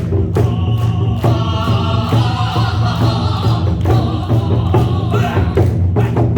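Korean buk drums beaten in a steady rhythm, with a sung line over them from about a second in until about five seconds in, over a steady low drone.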